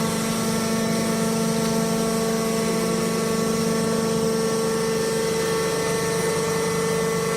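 Hydraulic press baler for sawdust and wood shavings running: its motor-driven hydraulic pump gives a steady, even-pitched hum.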